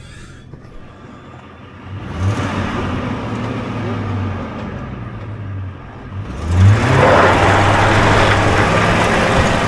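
Old Ford F350 pickup's engine being given throttle on a snowy road. The engine note rises about two seconds in, holds, and eases off. It picks up again about six seconds in, joined by a louder steady rush of road noise.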